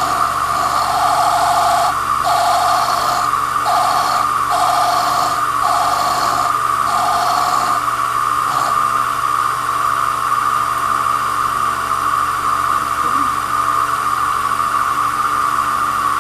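A small cue lathe runs with a steady whine while a hand-held blade is pressed against the spinning leather cue tip, trimming it. The scraping cut comes in strokes of about a second each, about seven of them, and stops a little over halfway through, leaving only the lathe running.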